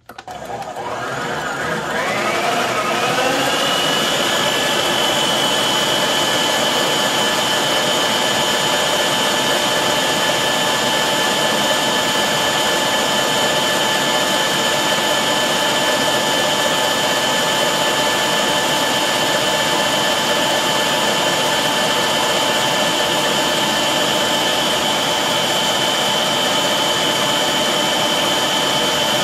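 VIVOHOME 650 W stand mixer switched on at its highest speed: the motor whines up in pitch over the first few seconds, then runs steadily at full speed as the wire whisk beats heavy cream into whipped cream.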